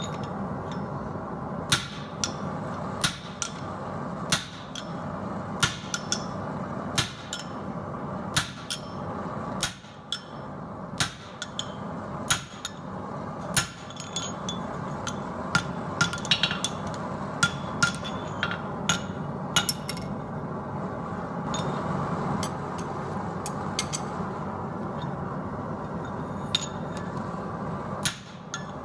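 Blacksmith's hand hammer striking steel on an anvil: single ringing blows, irregular and roughly a second apart, with a short pause partway through. A steady rushing noise runs underneath.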